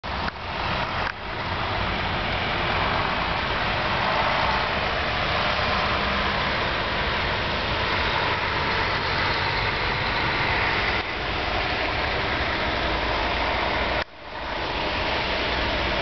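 Steady noise of road traffic, cars and trucks driving along a snow-covered road. It drops out suddenly for a moment about a second in and again near the end, then comes back.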